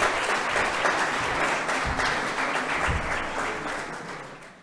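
Audience applauding, dense steady clapping that dies away toward the end.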